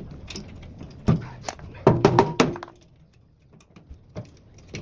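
Knocks and clanks of mortar-sprayer parts being handled and fitted, a cluster of them about a second in, one with a brief metallic ring, then a couple of faint clicks near the end.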